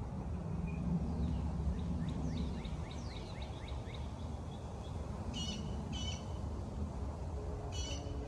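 Low rumble of thunder rolling, strongest in the first few seconds, with birds chirping over it: a run of quick falling chirps in the middle, then two pairs of short, sharp calls.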